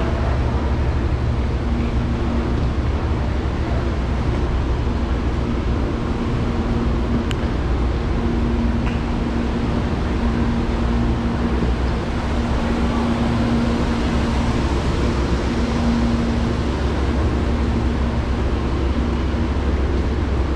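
Amtrak passenger train noise: a steady low rumble with a constant hum over it.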